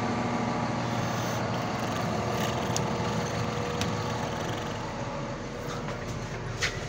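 Caterpillar 950M wheel loader's six-cylinder diesel idling steadily, easing slightly in loudness in the second half. A few light clicks over it, the sharpest near the end.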